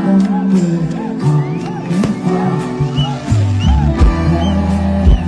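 Live band music played loud through a concert PA, heard from within the audience: sustained keyboard-like notes and drum hits, with a deep bass note coming in about three seconds in.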